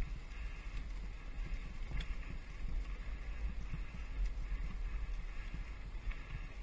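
Mountain bike descending a dirt singletrack at speed: steady low wind rumble on the riding camera's microphone, with the tyres and bike rattling over the trail and a sharp knock about two seconds in.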